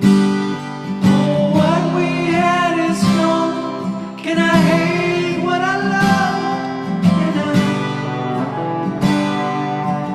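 Background music: acoustic guitar strumming, with a singing voice carrying a melody from about a second in until about seven seconds in.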